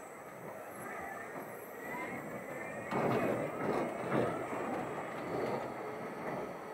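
Spinning coaster cars rolling over the steel track overhead, their wheels making a rumbling rattle that swells sharply about three seconds in.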